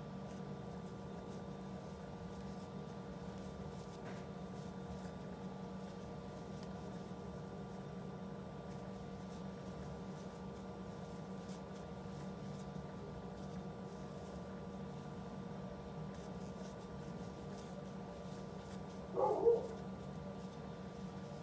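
Faint scratching and rustling of yarn being worked with a crochet hook, over a steady low hum. About nineteen seconds in, a brief two-part sound stands out, louder than the rest.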